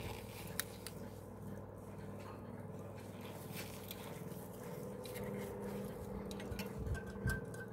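Light, irregular clicks and rubbing from gloved hands handling and turning two antique pocket watches, over a steady low hum. Two soft knocks come near the end.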